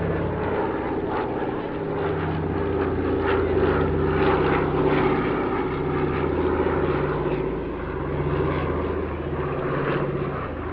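The two Pratt & Whitney R-1830 Twin Wasp radial engines of a PBY-5A Catalina flying boat droning steadily in flight. Their low hum swells and fades in a slow throb about once a second.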